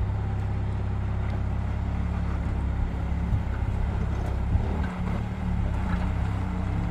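Off-road vehicle engine running steadily at low revs, a low hum whose pitch shifts slightly about five seconds in.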